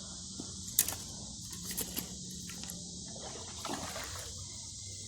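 Steady chorus of insects, crickets among them, with a few sharp clicks, the loudest about a second in.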